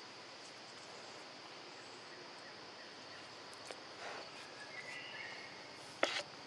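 Forest ambience: a steady high-pitched insect drone over a soft background hiss, a short faint chirp about five seconds in, and a sharp click about six seconds in.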